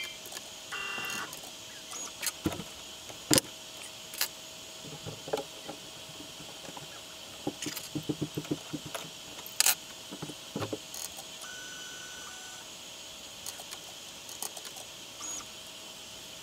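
Root 3 Lite 3D-printed CNC machine working a PCB: short whining runs of its stepper motors and scattered clicks and knocks over a faint steady tone, with a cluster of quick taps about eight seconds in.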